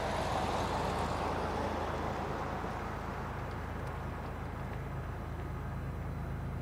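Steady low diesel engine drone, with a broader rushing noise that is strongest at the start and fades over the first two seconds.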